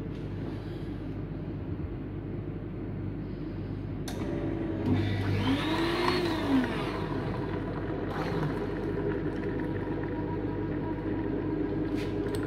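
Coffee vending machine making a coffee with cream: a steady motor and pump hum, with a click about four seconds in and then a whir that rises and falls in pitch around the six-second mark.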